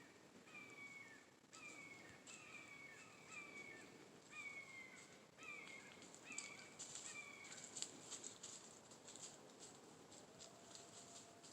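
A bird calling faintly and repeatedly in the woods: short downward-sliding notes, about one or two a second. About two-thirds of the way through, the calls give way to a scatter of faint high ticks.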